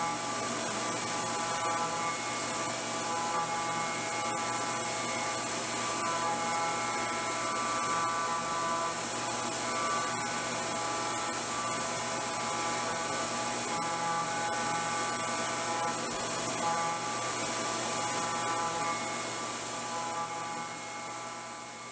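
CNC milling machine spindle running, with a small end mill cutting detail into a 52100 tool-steel coin die: a steady high-pitched whine over several steady lower tones. It fades out near the end.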